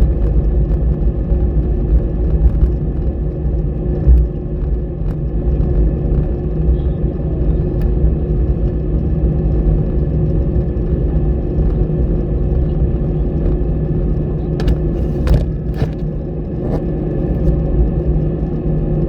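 Steady low rumble of an Airbus airliner's jet engines and airflow as heard inside the cabin, with a few faint steady tones above it. Three brief clicks come about three-quarters of the way through.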